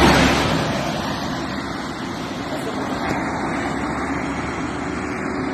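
A bus passing close by, loudest at the start and fading over about a second and a half, leaving a steady rumble of road noise.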